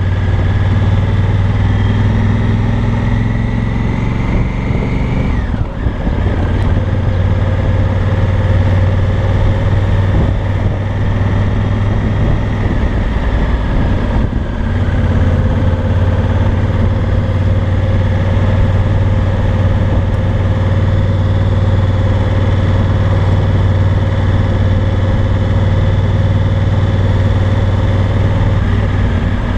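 Engine and exhaust of a 2018 Honda Africa Twin Adventure Sports, a 998 cc parallel-twin, running at low road speed. The revs climb for about five seconds, drop sharply, then hold steady, with a brief dip about halfway through.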